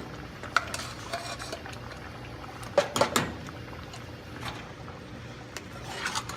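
Metal utensil clinking and scraping against a cooking pot as dumplings are lifted out and dropped into the soup: a few scattered clinks, with a louder cluster about three seconds in, over a steady low kitchen background.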